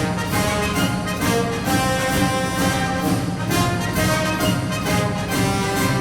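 Orchestral music with brass, playing at a steady pulse.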